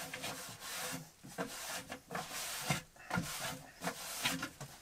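Cloth wiping over bare wooden shelves: a rubbing swish in a series of strokes with short breaks between them.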